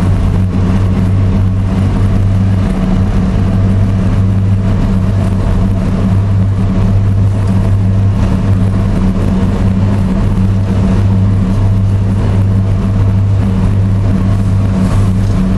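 Passenger ferry's engines droning steadily under way, a constant low hum with rushing noise over it.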